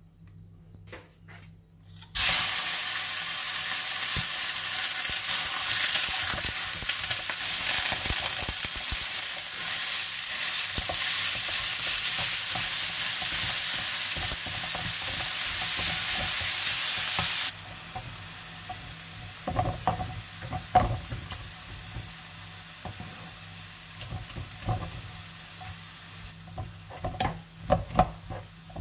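Raw ground meat sizzling loudly in hot olive oil in a ceramic frying pan, starting suddenly about two seconds in. Past the middle the sizzle drops suddenly to a softer level, with a wooden spatula scraping and knocking against the pan as the meat is stirred and broken up.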